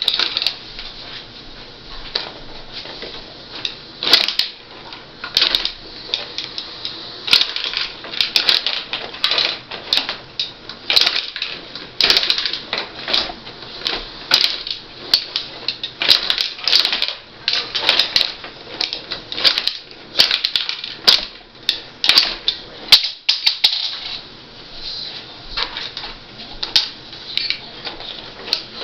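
Rod-operated table hockey game in play: rapid, irregular clacks and clatters as the puck strikes the player figures, boards and goalies and the rods are pushed and spun.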